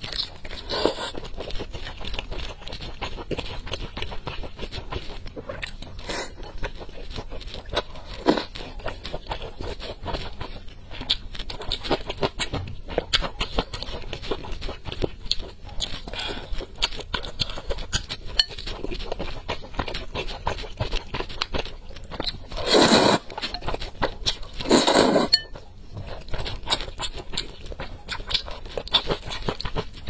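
Close-miked eating of spicy noodles and sausage: wet chewing and mouth clicks throughout, with two louder slurps about two seconds apart a little over two-thirds of the way through.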